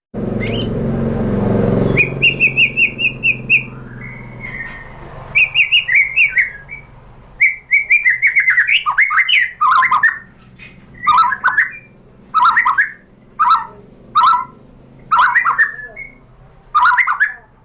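White-rumped shama singing: a fast run of repeated chattering notes, then a string of short whistled phrases repeated about once a second, each falling in pitch. A couple of seconds of low rumbling noise open the passage.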